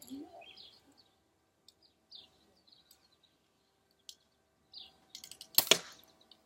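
Birds chirping, then a few light clicks and, about five and a half seconds in, one loud sharp shot from a BB gun.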